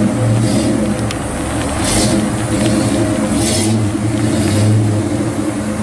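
A 1970 Pontiac GTO's V8 running with a steady low exhaust rumble as the car moves off at low speed, with two brief hissing sounds along the way.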